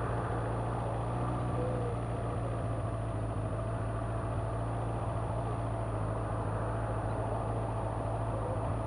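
Engines idling steadily with a low hum, with a faint wash of passing traffic.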